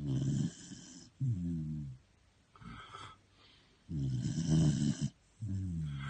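Cocker spaniel snoring in its sleep: two snores, each a rattling breath followed by a breath that slides down in pitch, with a shorter, fainter breath between them.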